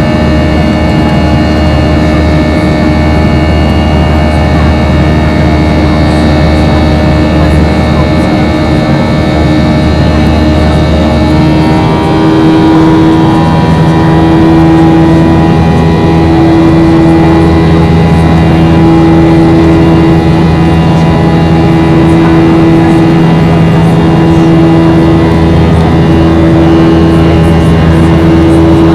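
Jet engine drone inside the cabin of a Boeing 737-700 with CFM56-7B turbofans, heard from a forward window seat during takeoff. A steady hum with several held tones; about twelve seconds in the pitch of the drone shifts and a slowly pulsing hum sets in.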